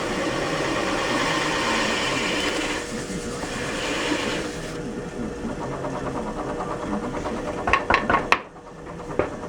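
Workshop power tool running, a steady motor hum under rough cutting noise that is heaviest for the first few seconds. A quick run of sharp knocks comes about eight seconds in, and the noise then drops off suddenly.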